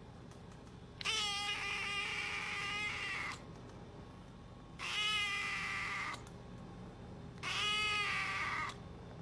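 A cat giving three long, drawn-out meows, each one to two seconds long with a wavering pitch, about a second and a half apart.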